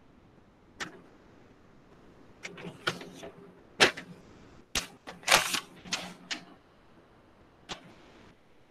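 Irregular sharp clicks and knocks, a marker tapping and striking a whiteboard as diagram lines are drawn, one about a second in, a dense cluster through the middle, and one more near the end.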